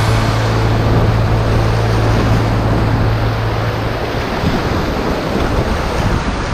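Whitewater rapids rushing loudly around a kayak as it runs down a river, heard close from the boat, with a steady low hum in the first few seconds.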